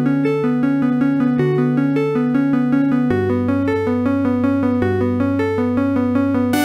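Synthesized ringtone-style demo music from a Yamaha MA-series mobile-phone sound chip: a quick run of clean, electronic-sounding melody notes over a held bass note that shifts about three seconds in. Right at the end a brighter, fuller passage starts.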